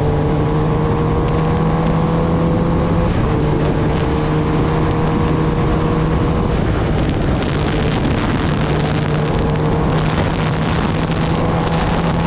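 Kawasaki Ninja ZX-10R's inline-four engine running under way at steady revs, with wind rushing over the microphone. The engine note slowly rises, then steps down a little three times, about 3, 7 and 10 seconds in.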